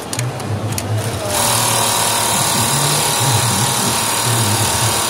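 HMS 1310 industrial pattern sewing machine stitching embroidery at speed, a steady mechanical running sound. Its higher chatter thins briefly about a second in, then the full running sound resumes.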